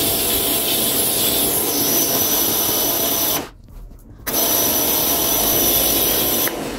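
Kärcher K3 Follow Me electric pressure washer running, its high-pressure jet on the hard setting spraying a motorcycle's front wheel. The steady motor-and-spray noise with a faint high whine cuts out for under a second about halfway through, then starts again and fades just before the end.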